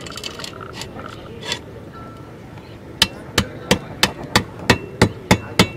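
A club striking down on a catla fish's head, driving it onto an upright cutting blade to chop through: nine quick, even blows, about three a second, starting about halfway through, after a few light knocks.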